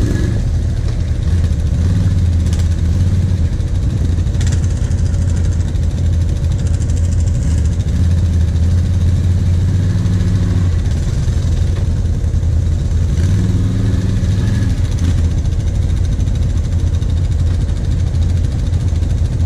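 Quad (ATV) engines running at low revs: a steady low hum, with a few brief rises as the quads pull away slowly over the muddy track.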